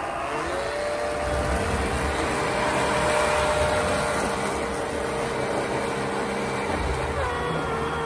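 3660 brushless electric motor of an RC snowblower whining steadily while it throws powder snow, with a rushing hiss under it. The whine's pitch sags and recovers shortly after the start and again about seven seconds in.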